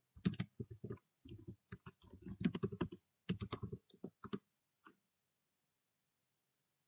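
Computer keyboard typing: a quick run of keystrokes lasting about four seconds, with two short pauses, then one single key press about half a second later.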